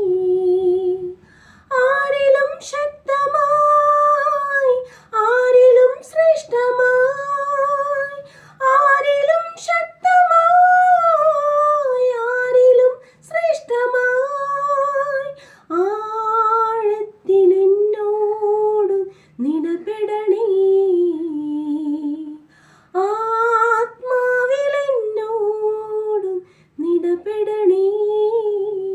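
A woman singing a slow Malayalam worship song solo with no accompaniment, in long held notes that glide between pitches, phrase after phrase with short breaths between them.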